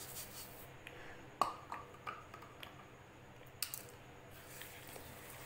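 Granulated sugar poured from a cup into thick mango pulp in a non-stick pan, faint, with a few light clicks and knocks, the clearest about a second and a half in.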